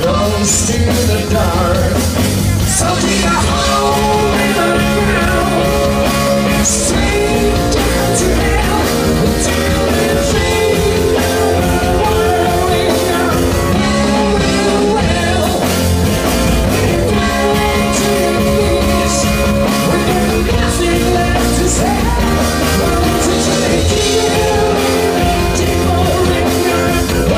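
Live rock band playing loudly, with singing.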